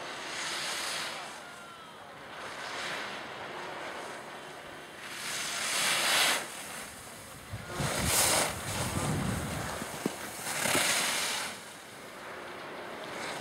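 Ski edges scraping on hard-packed snow, a swish every two to three seconds as the skier turns through the gates. Wind buffets the microphone with a low rumble in the middle.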